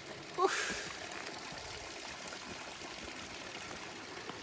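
Steady rush of running water, like a trickling stream or a tap. About half a second in comes a short rising squeak.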